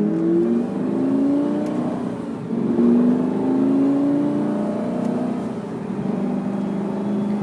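Lamborghini Gallardo Superleggera's V10 engine accelerating, its pitch climbing in two pulls and then holding steady for the last couple of seconds.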